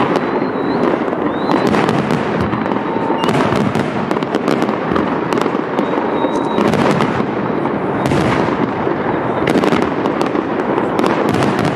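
Aerial fireworks shells bursting in a continuous barrage: dense crackling and many sharp bangs, one on top of the next.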